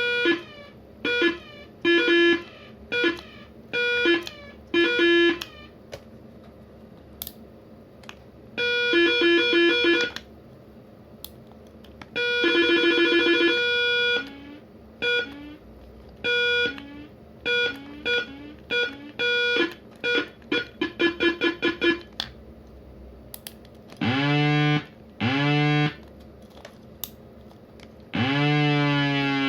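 Troots SD1 siren cycling through its tone patterns: short repeated beeps, a fast warble, a run of rapid pulses, then two rising whoops and a long rising wail near the end.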